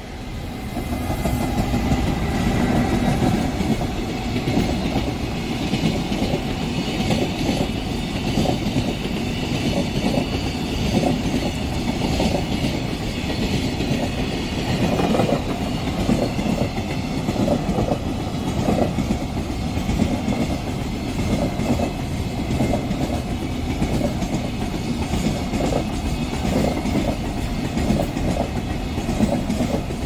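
A JR Freight EF210 electric locomotive and its long train of container wagons passing close by, the wheels clattering in a steady rhythm over the rail joints. The sound grows louder about a second or two in. A few high steady tones ring through the first half and stop about halfway.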